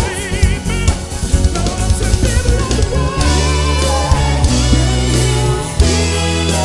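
Live soul band playing an upbeat cover: drum kit, bass, electric guitar and sung vocals, loud and continuous.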